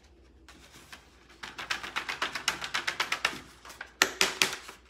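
Folded sheet of paper being tapped and flicked by hand to knock off the last of the glitter. A quick run of light ticks starts about a second and a half in, then a few louder taps come near the end.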